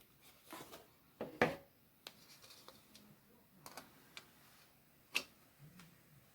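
Light clicks and taps from handling small craft pieces and a hot glue gun while gluing, with a louder knock about a second and a half in and a sharp click about five seconds in.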